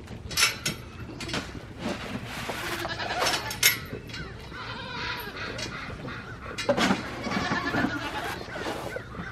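Nigerian Dwarf goats bleating, several calls in turn, the longest about seven seconds in.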